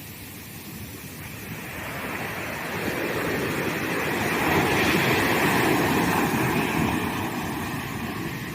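Ocean surf breaking on a sandy beach: the wash of a wave builds from about a second in, is loudest around the middle and then eases off.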